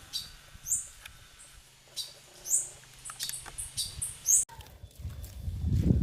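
Blue-black grassquits (tizius) chirping: two short, high, upward-sweeping chirps, then a quick run of short high notes. Low rustling and knocking start near the end.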